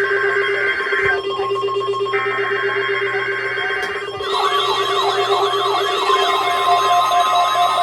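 Emergency Alert System test signal on NOAA Weather Radio: two buzzy digital SAME header data bursts, then about four seconds in the steady 1050 Hz warning alarm tone begins, with a warbling tone sweeping up and down about twice a second layered over it. A steady low drone sounds under everything.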